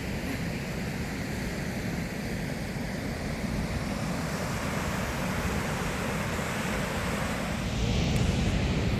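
Goðafoss waterfall rushing: a steady roar of falling water that swells a little louder near the end.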